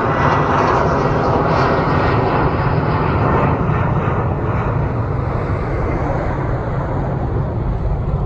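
Jet airliner engines, loud and steady, with a faint high whine in the first couple of seconds.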